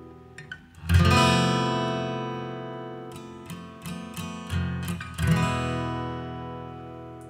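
Background music on acoustic guitar: a chord strummed about a second in and again about five seconds in, each left to ring out and fade, with single picked notes between.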